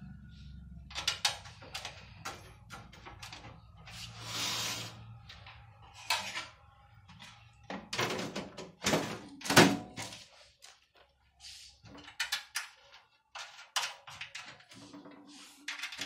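Sheet-metal side panel of a desktop PC case being slid into place and fastened with its screws: a run of clicks and knocks with a brief scrape about four seconds in, the loudest metallic thunks coming about nine to ten seconds in.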